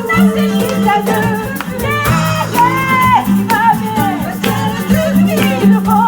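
Live band music in an instrumental passage: a steady bass line, a shaker keeping a rhythm, and a lead line with bent notes on top.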